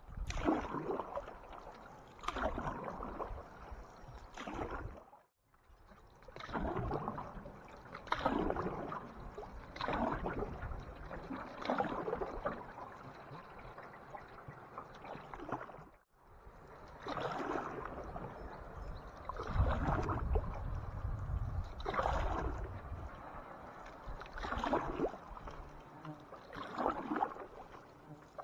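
Canoe paddles stroking through lake water, a swish and splash about every two seconds, with two brief breaks.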